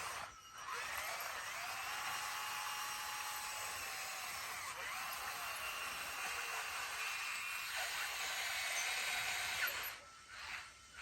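Bulldozer working: a steady mechanical whine with several tones slowly rising and falling as the machine's load and revs change. The sound drops out briefly just after the start and again near the end.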